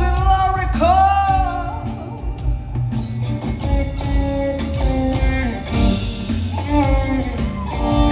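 Live rock trio of electric guitar, bass and drums playing an instrumental passage between vocal lines, with guitar notes that bend up and slide down, one long falling slide near the end.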